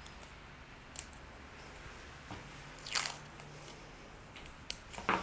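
Paper pattern pieces being handled and taped down on a cutting mat: light clicks and rustles, a short sharp rasp about three seconds in, and a louder scrape near the end.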